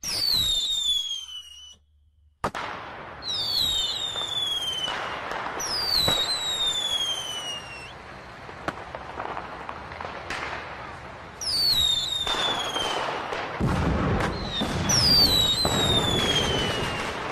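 Fireworks display: several whistling fireworks, each a falling whistle lasting a second or two, over a continuous run of bangs and crackling. A sharp bang comes about two and a half seconds in, and deeper, heavier booms follow near the end.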